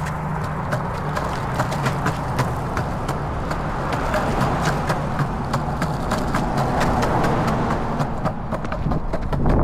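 Longboard wheels rolling on a concrete sidewalk: a steady rumble, with a sharp clack each time the wheels cross a joint between slabs, roughly every half second. A pickup truck goes by on the road alongside midway through.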